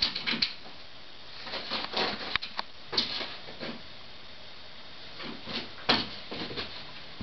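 A spring door stop being mouthed and nudged by a Brittany Spaniel puppy: irregular short twangs, scrapes and clicks with quiet gaps between, including one sharp click a little over two seconds in.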